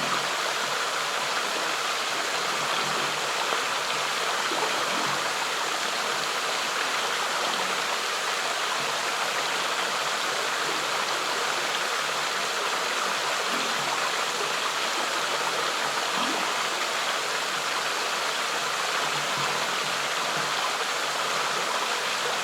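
Flowing water of a stream, a steady, even rushing sound.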